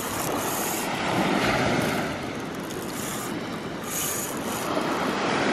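Close rustling and rubbing from handling near the microphone, over a steady rush of surf breaking on the beach. The rush swells and eases, with a few brief scratchy flares.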